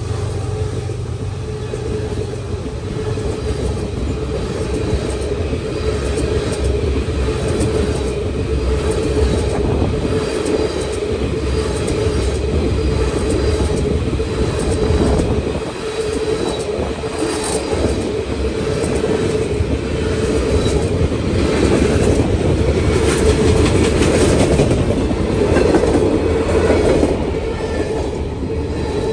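A train rolling past, its steel wheels clicking over rail joints above a steady rumble that lasts the whole time.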